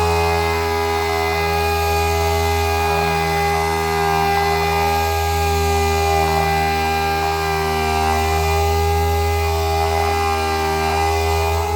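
Power sander running steadily while wet sanding automotive clear coat, giving a constant motor hum and whine that holds the same pitch throughout.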